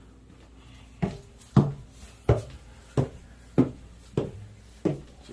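Footsteps climbing a flight of painted wooden stairs: seven heavy, evenly paced treads about two-thirds of a second apart, starting about a second in.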